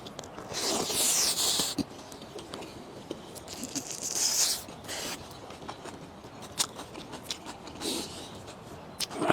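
Close-up eating sounds: a few noisy slurps about a second long, with small mouth and utensil clicks in between.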